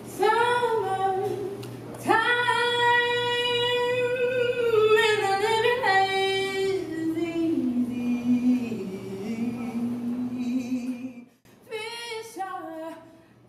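A woman singing slowly in long held notes, the melody stepping down in pitch, breaking off briefly about eleven seconds in before a shorter phrase.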